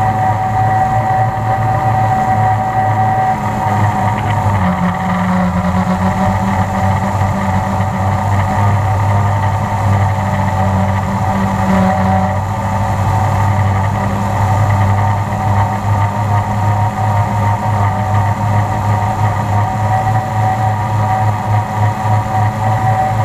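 Multirotor drone's electric motors and propellers, heard close up from the onboard camera, humming steadily with a whine. Its pitch shifts slightly between about five and twelve seconds in as the motor speed changes.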